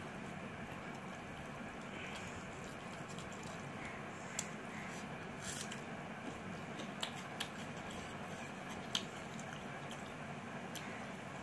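Fingers squishing and mixing rice with mutton gravy on a plate, with chewing and a few sharp clicks scattered through the middle.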